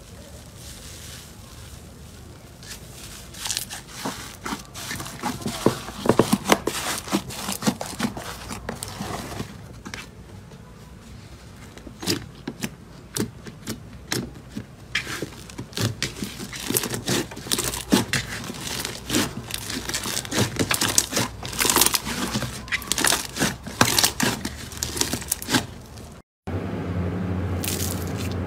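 Slime being pressed and poked by hand, giving a dense run of crackling pops and clicks as the air bubbles trapped in it burst. Near the end the sound breaks off for a moment and gives way to a steadier sound with a low hum beneath it.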